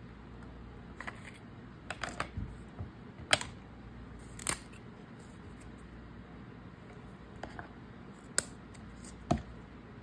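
Sparse light clicks and taps of small craft tools being handled and set down on a work mat, about eight in all, spread out over a faint room hiss.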